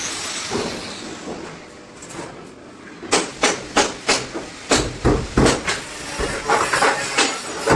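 A hiss that fades away over the first few seconds, then repeated hammer blows on metal, about three a second.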